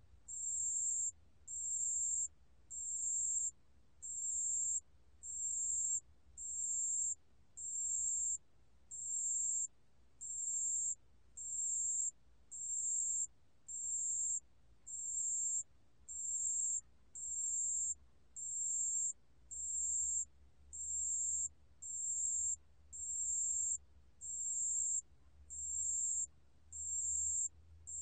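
Damsaek-bangul-beolle (pale bell cricket) singing at 28 °C. It gives a very high-pitched, steady trill in evenly repeated phrases of about half a second, slightly more than one phrase a second, each swelling a little in loudness.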